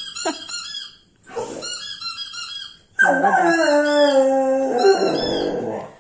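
Dog making high-pitched squeaky cries: two short runs of rapid squeaks, then from about three seconds in a longer, louder howl-like whine that slowly falls in pitch.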